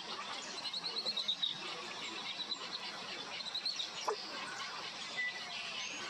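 Bird chirps: a quick run of high notes about a second in and a shorter run just past three seconds, over a steady outdoor hiss, with a single sharp click about four seconds in.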